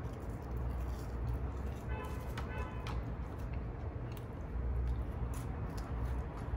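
Background music with a low pulsing bass under faint eating sounds: small clicks of chopsticks on plates and chewing.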